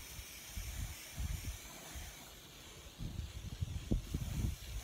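Aerosol spray paint can hissing steadily as paint is sprayed, with irregular low rumbles underneath that grow louder near the end.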